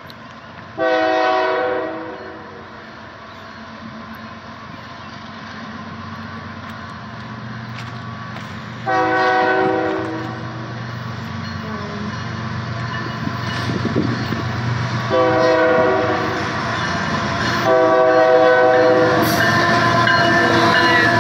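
Freight train's locomotive horn sounding four blasts as the train approaches, the first two about eight seconds apart and the last two close together. Under them the low rumble of the diesel locomotives grows steadily louder until the lead BNSF ET44C4 passes close by near the end.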